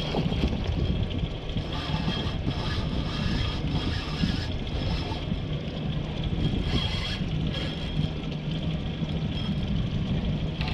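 Boat's outboard motor idling with a steady low hum and wind on the microphone, broken by several short whirring bursts from the spinning reel as a hooked mahi-mahi is played.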